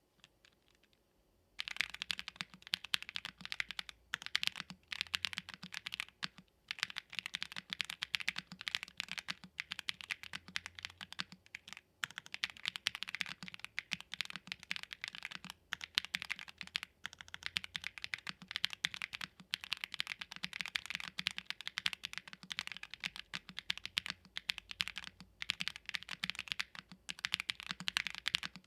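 Fast, continuous typing on a Tofu65 2.0 mechanical keyboard with Gateron Baby Raccoon switches and PBT keycaps, mounted on an FR4 plate in a foam-filled case with a brass bottom. The typing starts about two seconds in and runs with only a few short pauses.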